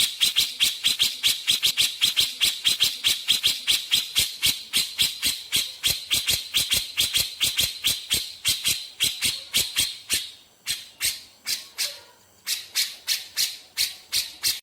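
Cucak jenggot (grey-cheeked bulbul) giving rapid-fire 'besetan' song: a fast run of short, sharp, high notes at about five a second, pausing briefly twice in the second half.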